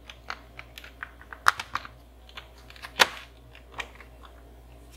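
Plastic clicks and snaps as the top case of a disassembled Apple Macintosh keyboard, keycaps removed, is pressed down onto its base. Scattered light clicks, with two sharper snaps about a second and a half in and about three seconds in.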